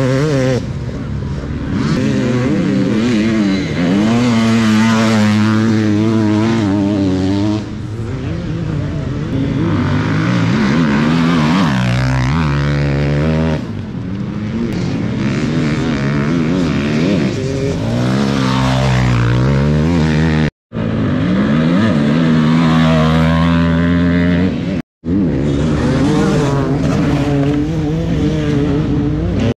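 Enduro dirt bike engines racing on a dirt track, their pitch climbing and falling again and again as riders accelerate, shift gear and back off. The sound drops out briefly twice, about twenty and twenty-five seconds in.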